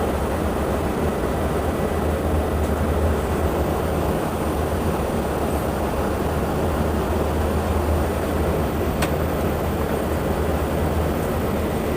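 Armstrong VFD-driven pump motor running steadily with a loud low hum and a noisy running sound. The abnormal noise is taken for a motor bearing that needs replacing.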